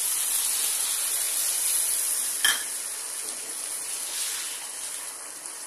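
Water poured into a hot pan of fish curry sizzling, with a single sharp clink about two and a half seconds in; after it the sizzling is quieter as a wooden spatula stirs the curry.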